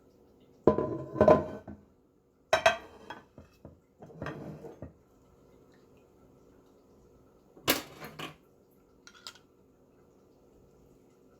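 Dishes and cutlery clinking and clattering in about five short bursts with pauses between. The loudest burst comes about a second in.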